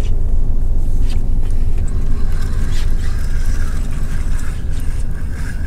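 Steady low rumble on a small boat at sea, with a faint wavering whine from about two seconds in and a few light clicks.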